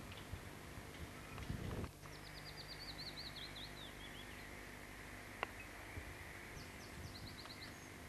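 A songbird singing outdoors: a quick run of high chirped notes that steps downward in pitch, then a shorter run of high notes near the end, over faint background noise. A brief low rumble comes about one and a half seconds in, and a single sharp click a little after the middle.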